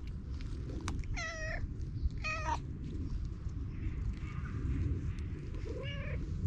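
Cat meowing: two clear meows about one and two seconds in, a faint one partway through and a short, lower, rising one near the end, over a steady low rumble.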